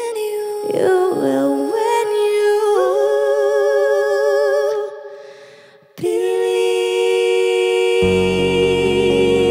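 Two women's voices singing unaccompanied in harmony, holding long notes with vibrato. The singing fades out about five seconds in, resumes after a short break on a held chord, and low keyboard notes join near the end.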